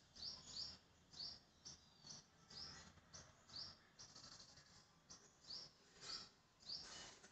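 Faint series of short, high chirps, one every half second or so, from a small bird calling over quiet background noise.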